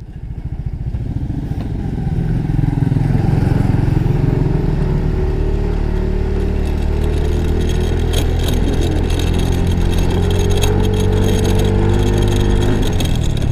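Yamaha Mio i 125 scooter's single-cylinder engine pulling up to speed over the first few seconds, then holding a steady cruise, and easing off near the end.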